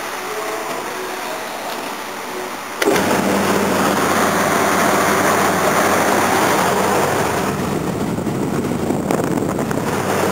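Large extraction fan switched on with a click about three seconds in, then running with a steady rush of air and a low hum.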